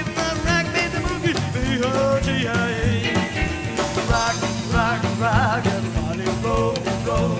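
Rockabilly band recording playing an up-tempo boogie, with upright bass and hollow-body electric guitar over a steady driving beat.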